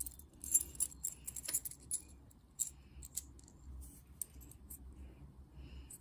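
Light metallic clicking and jingling as nuts are turned by hand onto M4 machine screws through two small flat metal plates, the loose screws, washers and plates knocking against each other. The clicks come thick in the first two seconds and thin out after that.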